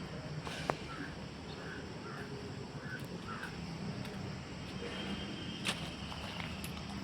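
Two sharp taps about five seconds apart over a steady low hum. A bird gives a quick run of short calls in the first few seconds.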